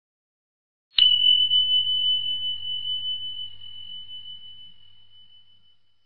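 Times-up sound effect: a single high bell struck once about a second in, ringing as one pure tone that fades slowly over about five seconds, signalling that the countdown has reached zero.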